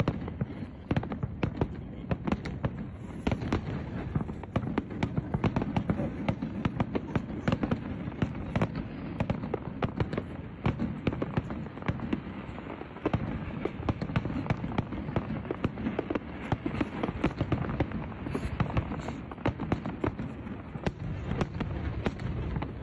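New Year fireworks going off: many rapid, irregular cracks and pops over a steady low rumble.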